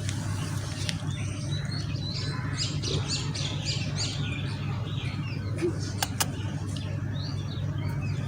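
Small birds chirping in quick, high twitters, busiest a couple of seconds in, over a steady low hum. Two sharp clicks come near the middle.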